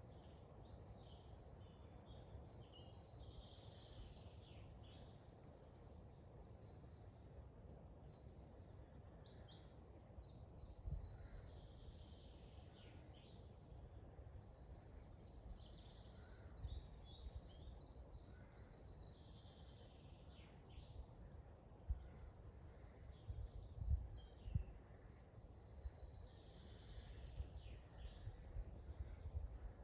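Faint woodland birdsong: several songbirds singing short, repeated phrases and trills one after another, over a steady low rumble with a few soft low thumps.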